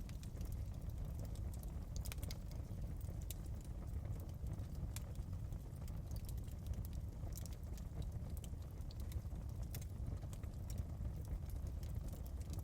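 Wood fire burning in a fireplace: a steady low rumble of the flames with scattered sharp crackles and pops.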